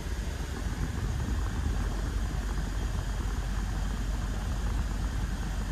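BMW 1 Series engine idling steadily, heard from inside the cabin with the heater running.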